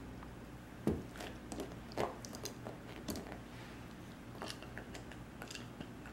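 Corgi puppy chewing and mouthing a small toy while rolling on its back on carpet: faint scattered clicks and rustles, a few louder ones about one, two and three seconds in.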